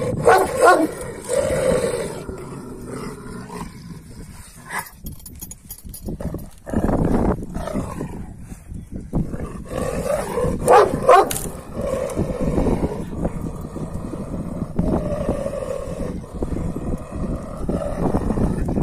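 Two Kangal shepherd dogs growling and barking at each other in rough play, with loud outbursts about half a second in and again around eleven seconds in, and lower growling in between.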